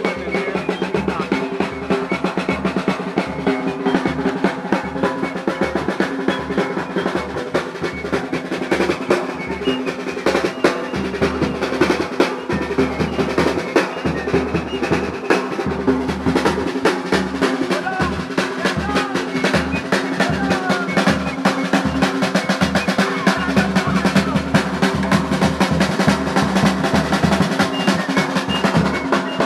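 Parade drum band playing snare and bass drums in a fast, continuous rhythm, dense with rolls.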